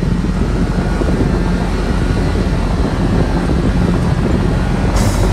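Kawasaki side-by-side running steadily along a gravel trail, engine drone mixed with tyre and ride noise and wind on the microphone, with a brief knock near the end.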